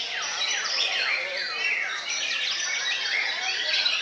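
White-rumped shamas singing: fast, overlapping whistled phrases full of quick falling sweeps, with several birds singing at once.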